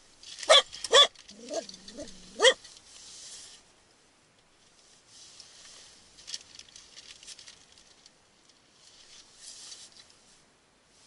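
Small white fluffy dog barking three times in quick, sharp barks, with a short whine between the second and third; emotional barking of the kind the dog gives at people. Softer rustling and clicking follow later.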